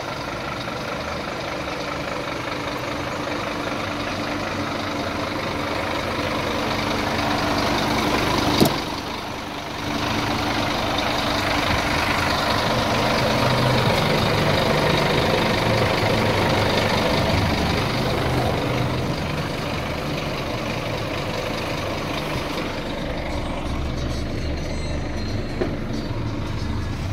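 Scania P310 truck's diesel engine idling steadily. A sharp click about eight and a half seconds in as the cab door latch opens, after which the sound briefly dips; near the end the engine sounds duller.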